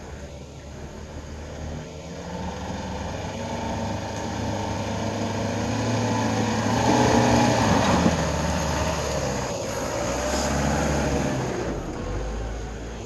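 Toyota Prado 120 4WD engine labouring up a steep rutted dirt track, getting louder to a peak about halfway through, then dropping back as the revs ease.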